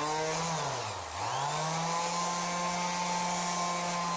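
Shakti electric finishing sander running on wood with 60-grit paper, a steady motor hum. About a second in its pitch sags and then climbs back, and it runs steadily after that.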